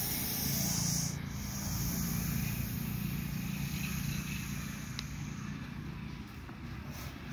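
Russell's viper hissing: a loud, breathy hiss that breaks off about a second in, then a fainter hiss, over a steady low rumble.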